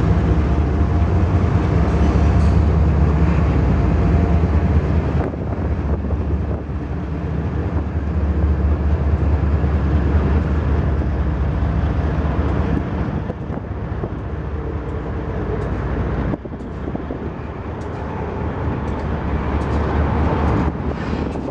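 A CSX freight train's diesel locomotives passing close by, their engines running with a deep, steady drone. About three-quarters of the way through the engine sound drops off sharply as the last locomotive passes and the freight cars roll by.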